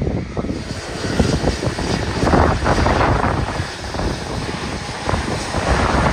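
Boeing 737 jet engines running as the airliner moves nearby, a loud, broad rushing noise that grows over the first couple of seconds, with wind buffeting the microphone in uneven gusts.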